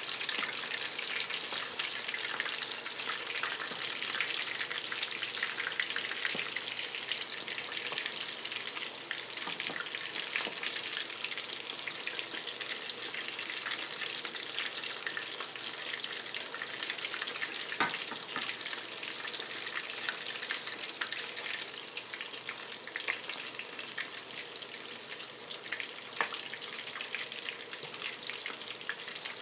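Chicken fritters deep-frying in hot oil in a stainless steel skillet: a steady sizzle full of fine crackles and pops, with one sharp click about eighteen seconds in.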